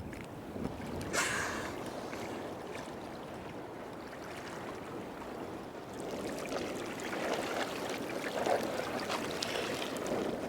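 Water sloshing and splashing around swimmers at the surface, with a brief splash about a second in.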